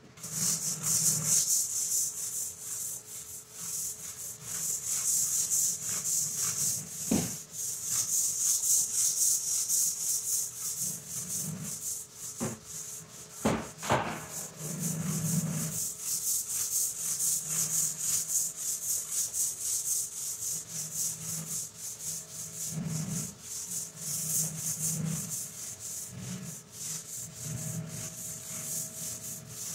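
Long-handled scrub brush scrubbing a wet, soapy tile floor in rapid back-and-forth strokes, a steady bristly hiss. A few sharp knocks come around the middle.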